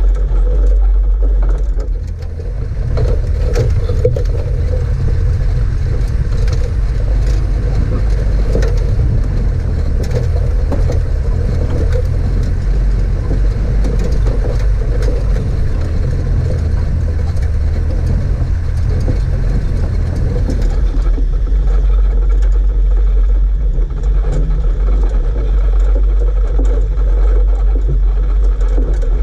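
Toyota 4x4 driving slowly over a rough lava-rock track: a steady low engine and road rumble with frequent knocks and rattles from the bumps, which thin out about two thirds of the way through.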